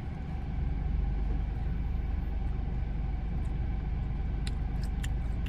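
Steady low rumble of a running vehicle, with a few faint clicks near the end.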